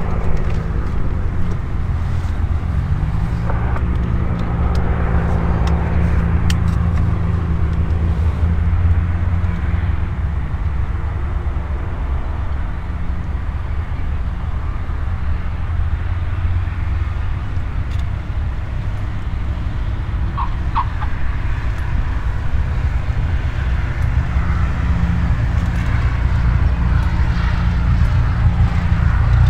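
Light aircraft's piston engine running steadily at low power, a low hum that holds throughout.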